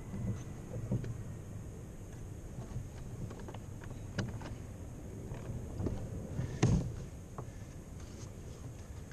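Scattered knocks and clunks on a Hobie Outback kayak's plastic hull as the paddle and gear are handled, over a steady low rumble. The loudest is a single thump about two-thirds of the way through.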